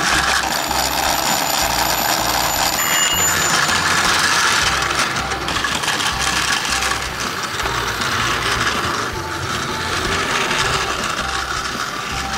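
Plarail toy train's small battery motor whirring steadily as the train runs along plastic track.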